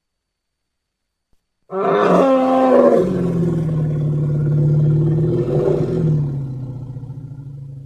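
Giant-monster roar sound effect from the Godzilla films. It begins about two seconds in with a high, falling cry, then settles into a long, steady low bellow that fades away near the end.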